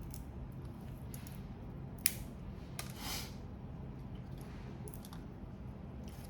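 Grilled prawns and crab being shelled and eaten by hand: scattered small clicks of shell, a sharp crack about two seconds in and a short crackle about a second later. A steady low hum runs underneath.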